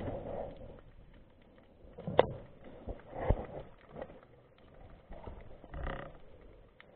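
Underwater sound picked up by a diver's camera while swimming through kelp: muffled swishes of water movement and two sharp knocks, the loudest about two seconds in and another about a second later.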